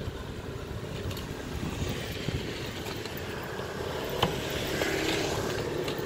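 Street traffic running steadily, a motor vehicle growing a little louder in the second half.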